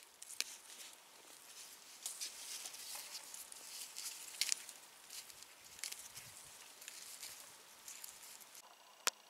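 Dry rustling with many light clicks and crackles as hands handle and pack dry material into a container, ending with one sharp click.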